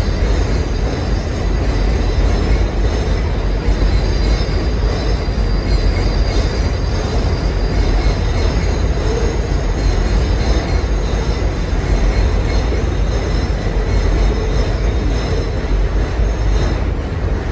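Loud, steady rumble of a passing train, with a faint high wheel squeal above it, easing off slightly near the end.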